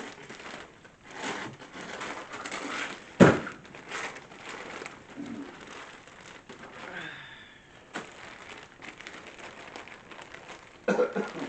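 Gift wrapping paper crinkling and rustling as a present is unwrapped, with a sharp knock about three seconds in and a few words spoken near the end.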